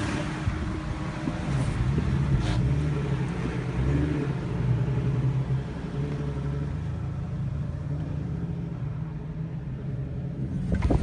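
Vehicle engine running while driving, its revs rising and falling. A brief knock sounds a couple of seconds in.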